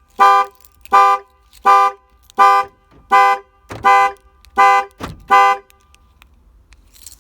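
Ford E-350 van's horn honking in an even alarm pattern, about three honks every two seconds, then stopping after eight honks about five and a half seconds in: the vehicle's alarm going off.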